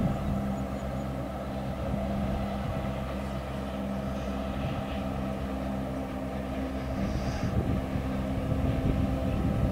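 Diesel-electric locomotive DBR1254 running with a steady low engine drone as it hauls a passenger excursion train slowly across a viaduct.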